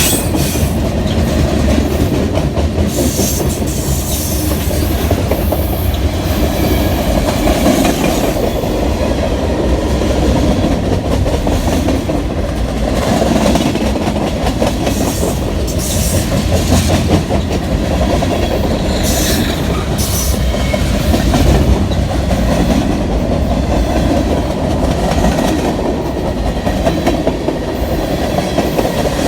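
Freight train rolling past with a steady rumble, its wheels clacking over rail joints, and a few brief high-pitched flashes of noise from the wheels now and then.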